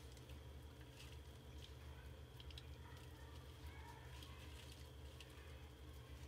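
Near silence: a steady low hum with a few faint, scattered ticks.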